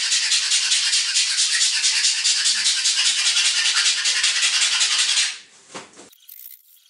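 A brush scrubbing paint onto a wall: a fast, steady, rough rubbing that stops about five seconds in.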